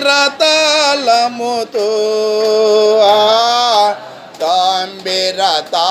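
A man singing a Telugu Christian praise song solo, in long drawn-out phrases with one long held note in the middle.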